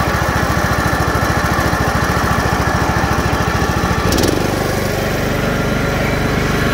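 John Deere Z225 zero-turn mower's 17.5 horsepower Briggs & Stratton engine throttled down to idle, blades disengaged. There is a short click about four seconds in, and after it the engine's low pulsing evens out into a steadier hum.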